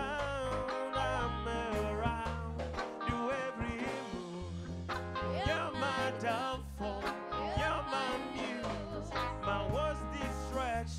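An acoustic band playing a song: a singer over strummed guitar and a bass line.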